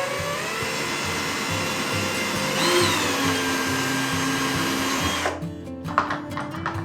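An electric motor, from a power tool or vacuum, spins up, runs steadily for about five seconds and cuts off suddenly, over background music.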